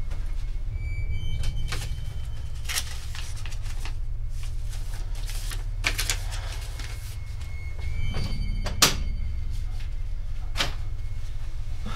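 Scattered knocks and clicks of a door and household objects being handled, the loudest knock about nine seconds in, over a steady low hum.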